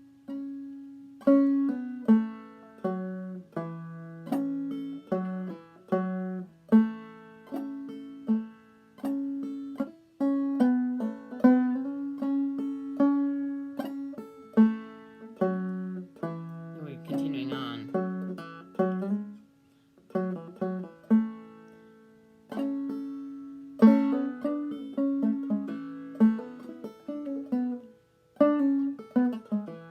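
Clawhammer banjo playing the B part of a fiddle tune in A at a slow lesson pace, a steady run of plucked notes with pull-offs and slides. The playing breaks off for short moments a few times in the second half.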